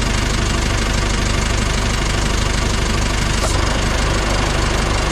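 A new light cargo truck's engine idling steadily with the clutch pedal held down. With the clutch disengaged the gearbox rattle is silenced, and only the engine is heard.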